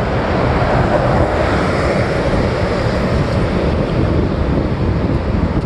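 Wind buffeting the microphone, a steady rough rumble, swelling for a couple of seconds about half a second in.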